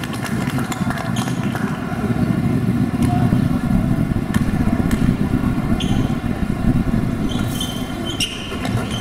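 Steady low rumble of gymnasium background noise. Near the end a few short, high squeaks come in as players move for the rebound, typical of basketball sneakers on a hardwood floor.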